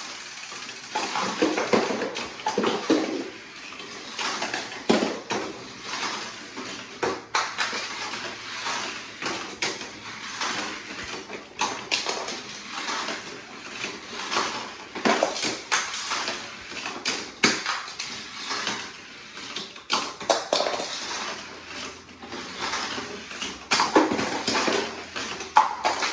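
Die-cast Hot Wheels toy cars clattering down the plastic ramps and spirals of a Hot Wheels Ultimate Garage track set: a long run of irregular clicks and clacks.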